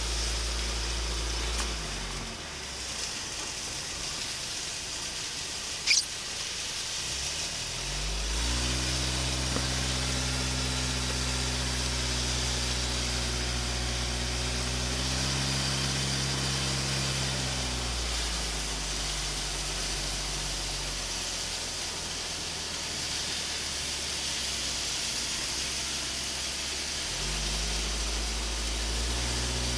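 Car engine and road noise while driving. The engine hum drops away about two seconds in, climbs again around eight seconds, eases off in the middle and picks up again near the end, as the car slows and speeds up. A short sharp squeak comes about six seconds in.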